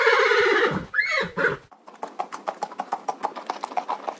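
A horse whinnies loudly, then gives a shorter second call, followed by the quick, even clip-clop of hooves at a gallop, about six beats a second.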